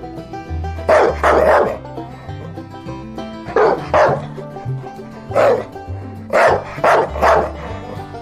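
German shepherd barking in short runs of one to three barks, about eight in all, over background music with a steady bass line.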